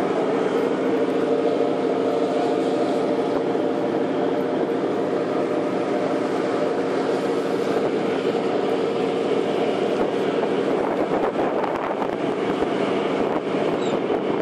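Boat engine running steadily, a constant drone, over the hiss of water and wind.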